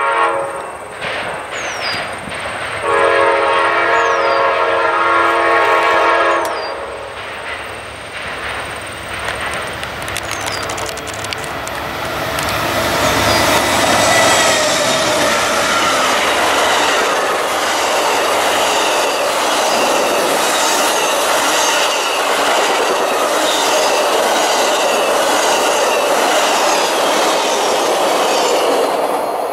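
Amtrak GE Genesis diesel locomotive sounding its horn for a grade crossing, the last blast long, from about three to six and a half seconds in. The train then passes at speed: the diesel goes by about halfway through, followed by passenger cars rolling past with wheels clicking steadily over the rail joints.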